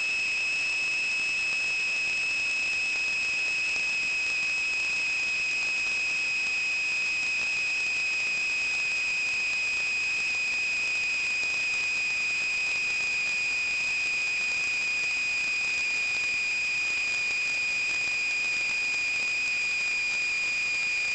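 A steady high-pitched whistle over a hiss, unbroken, its pitch drifting very slightly lower.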